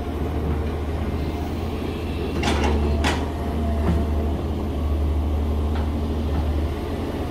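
Excavator's diesel engine running steadily as its bucket works in wet soil, with two sharp knocks about two and a half and three seconds in.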